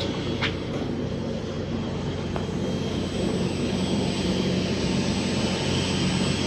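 Twin diesel engines of a Sunseeker Predator 63 motor yacht running steadily at slow harbour speed: a low, even drone. There is a brief tick about half a second in, and the drone grows slightly louder after about three seconds.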